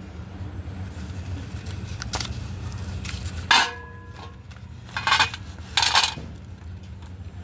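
Slate pencils tipped from their box clattering onto a stainless steel plate: three clattering bursts with a metallic ring, the first about halfway in, over a steady low hum.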